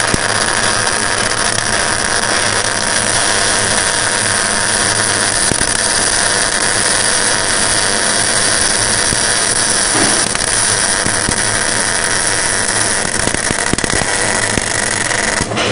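Electric arc welding: the arc gives a loud, steady hiss while a bead is laid, and it cuts off suddenly near the end.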